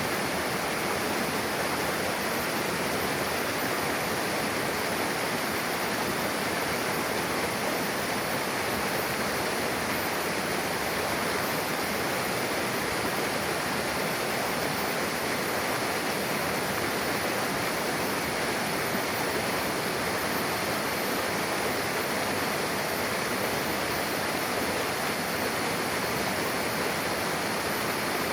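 Mountain river rushing where two streams meet: a steady, even roar of fast water over rocks.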